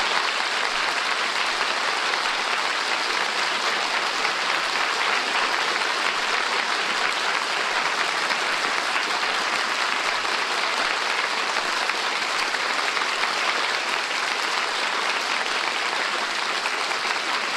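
Studio audience applauding, a steady, sustained ovation for a finished musical number, on a 1951 radio broadcast recording.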